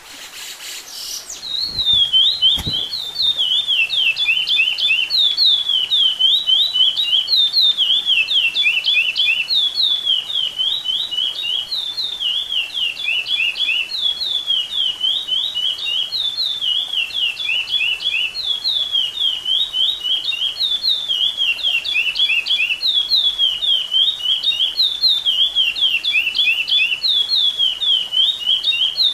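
Chestnut-bellied seed finch (curió) singing: quick, high, descending whistled notes grouped into phrases of about two seconds, repeated without a break from about a second and a half in. It is a 'repetidor' curió song used as an encarte, a training recording for teaching young curiós to sing.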